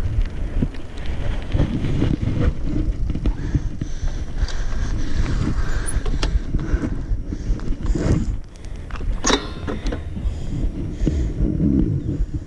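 Mountain bike being ridden, heard from a handlebar-mounted camera: a steady rumble of wind on the microphone and tyres on the road, with scattered clicks and rattles from the bike and mount, and a quick run of rattling about nine seconds in.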